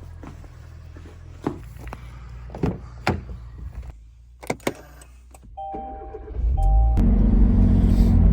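Car being got into and started: a series of clicks and knocks, two short electronic beeps, then the engine starts and runs steadily, much louder, for the last second or so.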